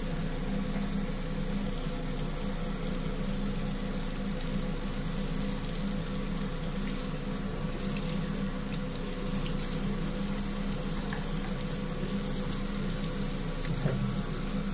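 Bathroom tap running steadily into a washbasin, the stream splashing over soapy hands as they are rinsed.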